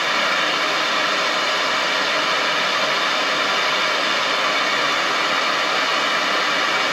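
Propane torch flame burning with a steady, even hiss.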